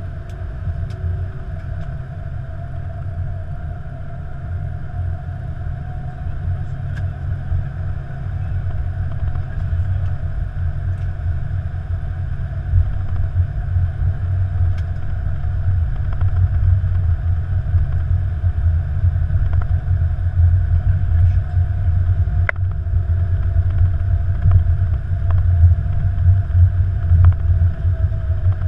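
Steady low rumble on the flight deck of an Airbus A330-200 rolling slowly along a concrete runway, with a faint steady hum above it and a few light clicks; it grows slightly louder over the stretch.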